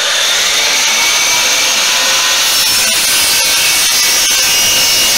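DeWalt sliding compound miter saw running at full speed and cutting through wood: a loud, steady motor whine mixed with the noise of the blade in the wood.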